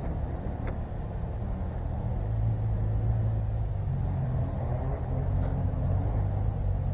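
Steady low rumble, with a faint sharp click about a second in and another about five and a half seconds in.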